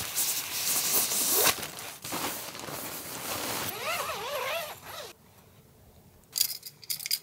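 Nylon stuff sack rustling and swishing as a folded Big Agnes Rapide inflatable tent floor pad is slid out of it, loudest in the first two seconds. Softer handling noise follows, with a brief warbling sound about four seconds in, then a few light clicks near the end.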